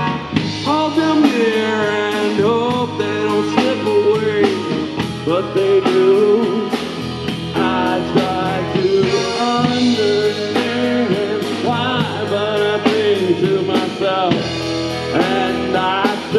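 Three-piece rock band playing live: drum kit, bass and electric guitar, with a melodic line bending up and down over them.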